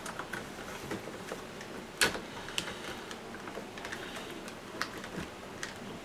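Scattered light plastic clicks and taps from the Roomba e5's green rubber roller brushes being handled and pushed into their plastic housing, with one sharper knock about two seconds in.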